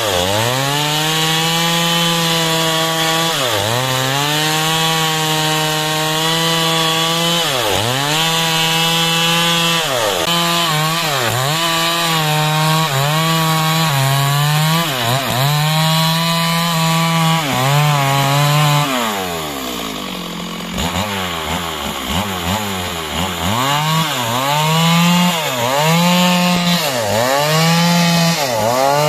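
Stihl two-stroke chainsaw cutting through timber at high revs, its engine pitch repeatedly dipping as the chain bogs under load and recovering. About two-thirds of the way through it falls back to a low, quieter speed for a couple of seconds, then revs up and cuts again.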